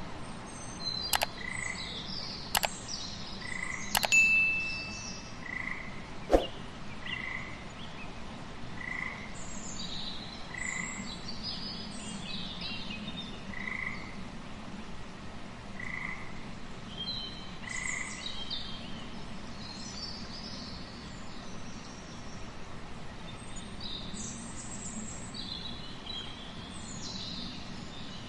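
Frogs calling: one short note repeated about once a second for most of the time, with a few sharp clicking calls in the first several seconds and scattered higher chirps throughout.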